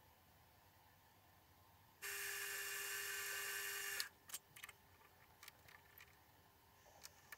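Mini mill's spindle motor running with a steady whine for about two seconds while drilling, cut off suddenly with a knock. Then a scatter of light metal clicks and ticks from hands working the machine.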